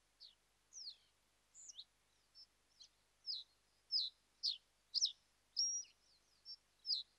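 Small songbird chirping: a run of short, high, mostly downward-sweeping chirps, about one or two a second, getting louder over the first few seconds.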